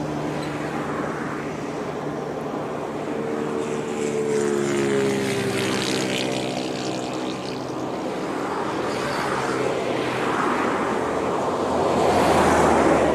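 Boeing 747-400F's jet engines, a steady drone with humming tones that fall in pitch a few seconds in, and a rush of engine noise swelling near the end.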